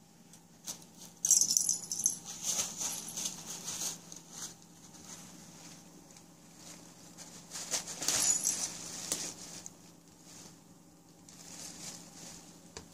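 Small bells and rattles on cat toys jingling and clattering in two bouts, one about a second in and another around eight seconds in, with soft knocks in between.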